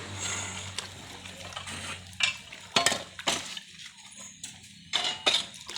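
Water splashing at a drilled well, with several sharp metallic clinks. A low steady hum fades out in the first second.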